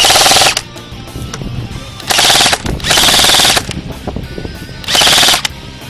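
Airsoft guns firing on full auto in four short rapid bursts: one at the start, a close pair about two to three and a half seconds in, and one about five seconds in.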